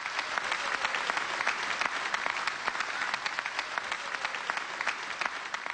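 Crowd applauding: dense, steady clapping that starts to fade near the end.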